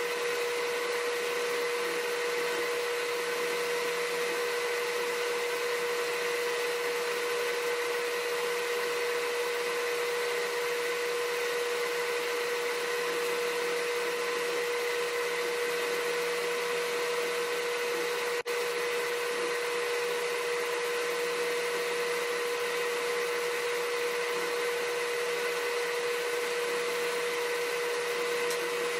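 Steady machine whir with a constant hum, unchanging throughout, with one very brief dropout about two-thirds of the way through.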